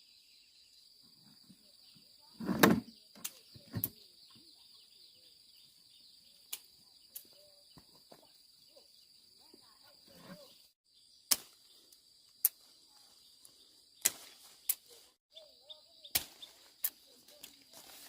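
Steady high-pitched insect drone, with scattered sharp clicks and knocks of handling, the loudest about two and a half seconds in.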